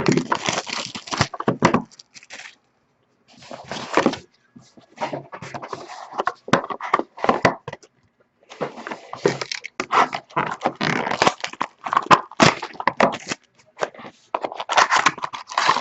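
Irregular rustling, crinkling and clicking of packaging and trading cards being handled as a new box of sports cards is opened, with short pauses in between.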